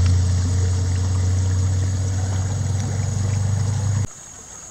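A loud, steady low hum that cuts off abruptly about four seconds in, leaving the faint sound of flowing river water.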